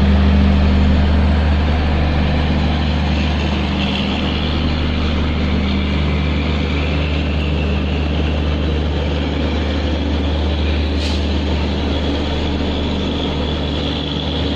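Passenger train running at speed, heard from on board: a steady rumble of wheels and carriage with a low hum.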